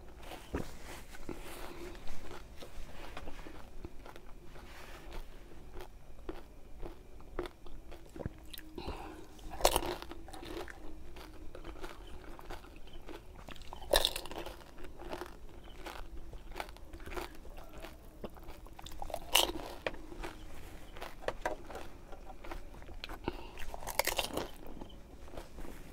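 Crisp pani puri shells crunching and being chewed with a full mouth, close to the microphone. A louder, sharper crunch comes about every four to five seconds as another whole puri is bitten.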